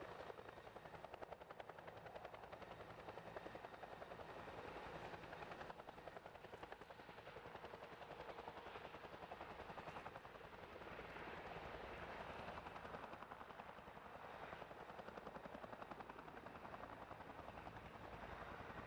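Eurocopter EC135 police helicopter flying with a firefighting water bucket slung beneath it, its main rotor giving a faint, steady, rapid beat.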